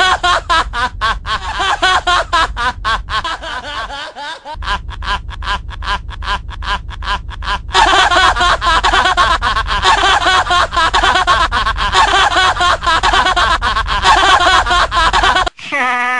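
A man laughing maniacally: a rapid run of short staccato laughs, about four or five a second. About eight seconds in it turns into one long unbroken cackle, with a low steady drone underneath, and it cuts off sharply near the end.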